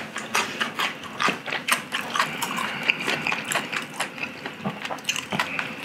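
Chewing and lip-smacking on a mouthful of food: an irregular run of wet clicks and smacks.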